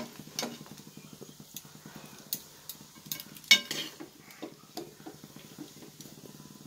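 A metal ladle stirring and knocking against an aluminium pot of seeraga samba biryani, turning the rice to check whether it is cooked, with one sharp clink about three and a half seconds in. A steady low hum runs underneath.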